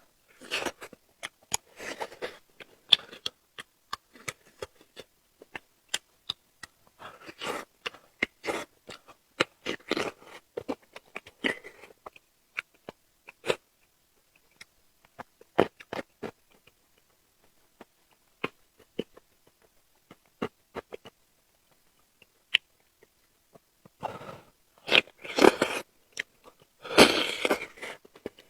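Close-miked chewing and crunching of seafood, with many short wet mouth clicks and smacks. There are louder, longer crunching bursts near the end.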